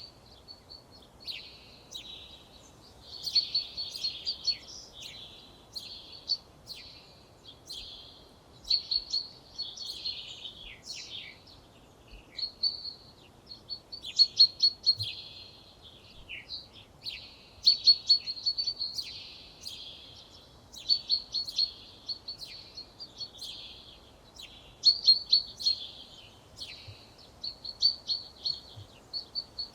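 A songbird singing short phrases of quick repeated notes, a new phrase every three or four seconds, over faint outdoor background noise.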